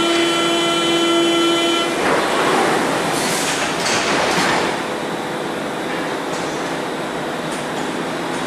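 Berlin U-Bahn train's door-closing warning signal, a steady tone held for about two seconds. The doors then slide shut with a burst of noise and clunks a couple of seconds in, followed by the steady noise of the train standing and then moving off along the platform.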